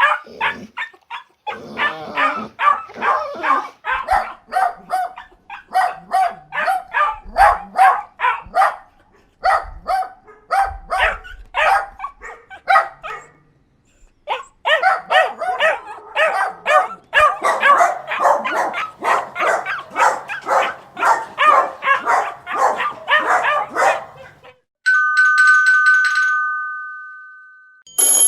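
A dog barking rapidly and continuously, with a short break in the middle. Near the end the barking stops and a two-tone chime rings and fades away.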